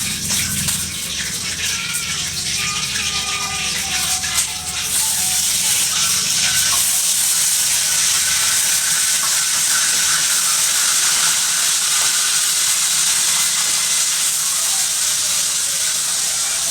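Running water splashing under background music. About five seconds in, a louder, steady hiss takes over and holds to the end.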